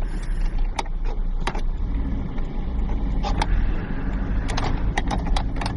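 Car driving on snowy roads, heard from inside the cabin with the window down: a steady low rumble of engine and road noise, with a scatter of short sharp clicks, several of them close together near the end.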